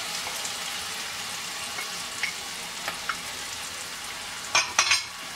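Chopped onion and sliced canned mushrooms sizzling in butter in a stainless steel frying pan, a steady hiss with light crackles. About four and a half seconds in comes a short burst of loud scraping knocks as the pan is stirred.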